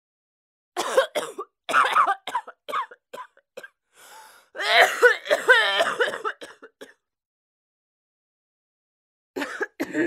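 A person coughing: a run of short, sharp coughs, a breath in, then a longer voiced stretch of coughing and throat clearing. After a pause, another bout of coughing starts near the end.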